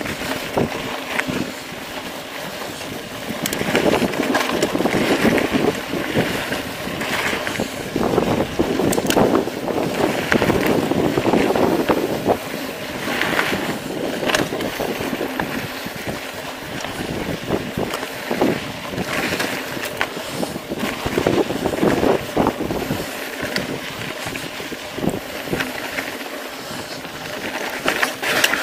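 Mountain bike riding fast over a rocky dirt trail: wind rushing over the microphone mixed with the tyres crunching on gravel, and sharp clicks and rattles from the bike over the bumps. The noise swells and eases as the pace changes.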